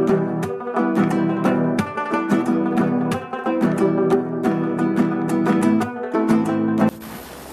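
Background music of strummed and plucked acoustic guitar that cuts off suddenly near the end, leaving the steady noise of the helicopter.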